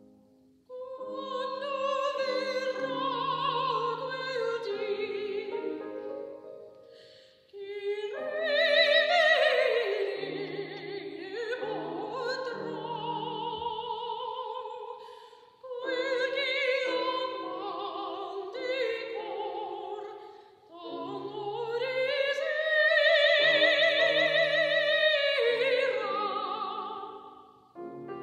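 Classical soprano singing with vibrato over grand piano accompaniment, in four long phrases with short breaths between them.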